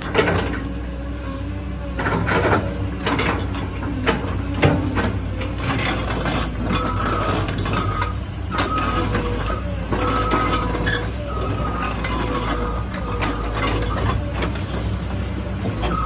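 Caterpillar 315D excavator's diesel engine running steadily under hydraulic load as the machine lifts itself on its boom, with repeated metal clanks and knocks. From about halfway, short whining tones come and go.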